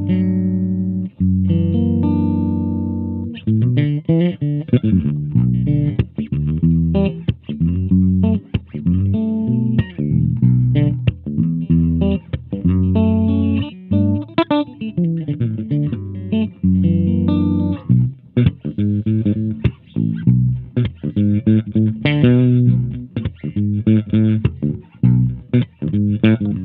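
Cunningham RLJ6 headless electric bass played in humbucking pickup mode, with the mid-range knob turned all the way down. A few held notes open the passage, then a busy run of short plucked notes follows.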